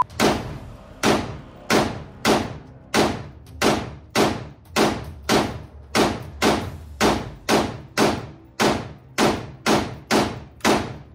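AR-style rifle fired in steady semi-automatic shots, about nineteen of them at nearly two a second, each crack echoing down the indoor range.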